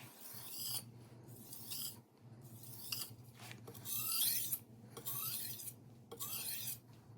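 A kitchen knife edge drawn in light stropping strokes across a high-grit whetstone to remove the burr: a series of short rasping scrapes, roughly one every half-second to second.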